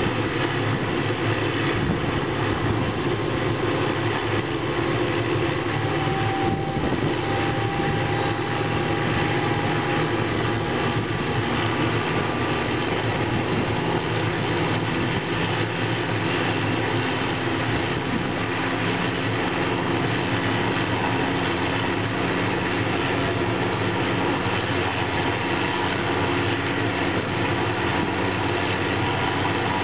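Hughes 500C helicopter's turbine engine running steadily with the main rotor turning, on the ground during start-up before takeoff.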